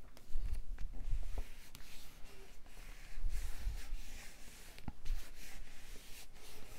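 Cardstock being handled on a tabletop: paper rubbing and sliding, with soft bumps as hands lay the pieces down and press them flat, and a few light clicks.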